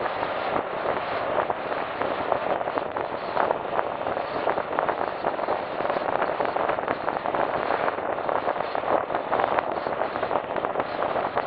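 Steady rush of wind and road noise on the microphone of a camera riding on a moving vehicle at road speed.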